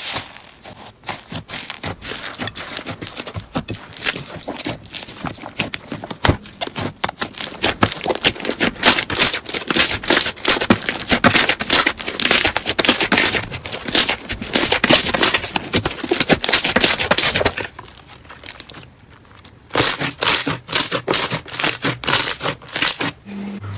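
Crunchy slime being squeezed and kneaded by hand, giving a dense run of crackling pops and clicks. It drops away for about two seconds near the end, then resumes.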